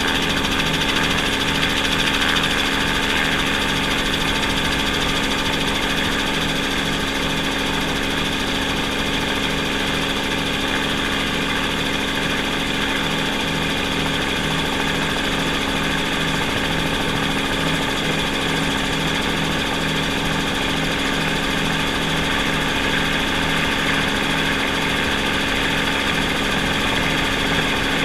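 Steady mechanical hum and whine of the rotors and motors of the aircraft carrying the camera, with a low pulsing throb under it. It holds even throughout, with no rise or fall.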